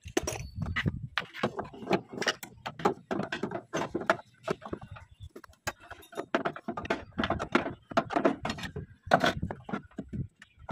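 A rapid, irregular run of clicks, knocks and clatter from hand tools and hard plastic as a plastic engine coolant reservoir is unfastened and worked loose under a van's hood.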